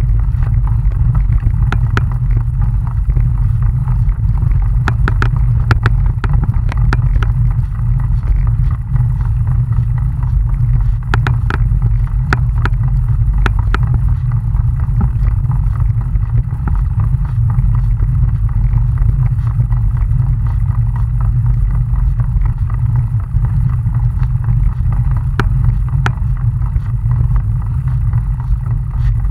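Steady low wind rumble buffeting the microphone of a camera carried on a moving bicycle, with scattered sharp clicks and rattles here and there.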